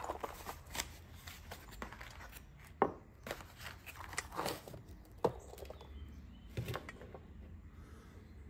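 Small cardboard box being handled and opened, with rustling and a scattering of light clicks and knocks as small parts, a solder spool and a tin, are picked up and set down on a wooden workbench.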